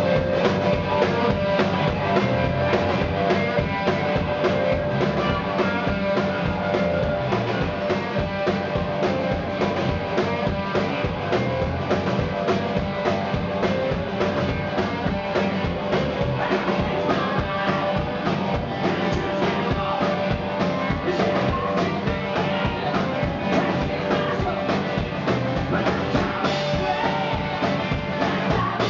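Rock band playing live: drum kit and electric guitar, with a male lead singer.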